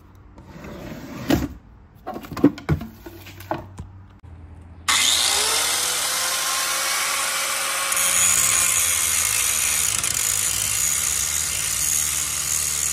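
A few knocks and clunks as a wooden drawer is opened and an angle grinder is taken out. About five seconds in the electric angle grinder switches on, its whine rising as it spins up. From about eight seconds it grinds down the head of a bolt.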